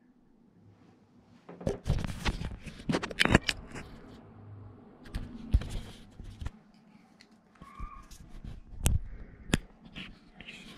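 Handling noise from the camera being picked up and moved: an irregular run of sharp clicks and knocks with rubbing and scraping, starting about a second and a half in.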